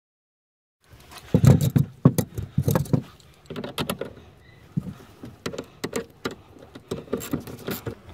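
Irregular metal clicks, clanks and rattles of a socket wrench working the car battery's negative terminal nut, starting about a second in and loudest over the next two seconds, then thinning to scattered clicks.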